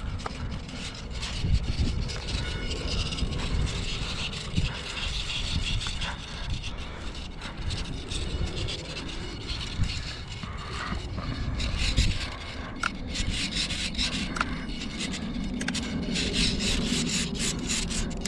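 Rubbing and scraping from hands handling the foam airframe of a UMX A-10 Thunderbolt II RC plane and pressing tape over its battery, with irregular low rumbling from wind on the microphone.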